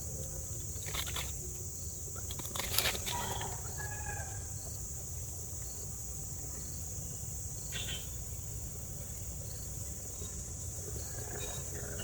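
Steady high-pitched insect drone, with a few short faint clicks and brief chirps over a low background rumble.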